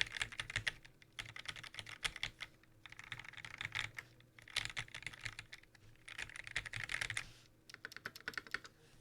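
Typing on a QXP60 custom mechanical keyboard with lubed 1994 vintage Cherry MX Black linear switches in a brass plate, under GMK keycaps: fast runs of keystrokes broken by short pauses, becoming sparser near the end.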